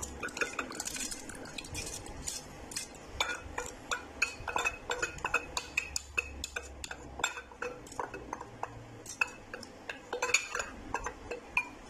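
Irregular small clinks, taps and scrapes of a spoon against a dish and a glass blender jug as soaked rice and its water are tipped into the jug.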